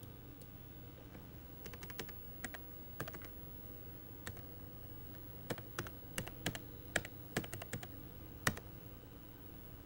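Computer keyboard keys being typed, a web address entered in a string of irregular clicks, with one harder stroke near the end the loudest. A faint steady low hum runs beneath.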